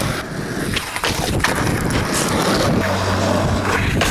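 Skateboard rolling on pavement, with a few sharp clacks about a second in, under heavy wind buffeting the microphone.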